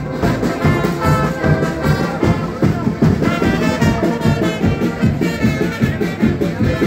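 Live carnival brass band playing a lively dance tune: brass instruments carry the melody over a steady bass drum beat.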